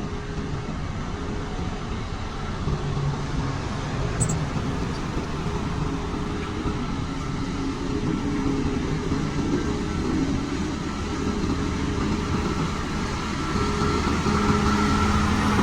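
Motor grader's diesel engine running steadily under load with a continuous mechanical rumble, getting louder near the end.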